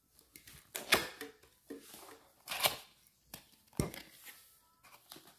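A cardboard blood pressure monitor box being handled and opened: a few short scrapes and rustles of the cardboard flaps, with one dull knock a little before the end.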